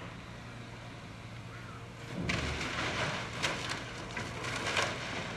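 Demolition excavator at work: its engine running steadily, then from about two seconds in a run of clattering and crashing as concrete debris is broken and dropped.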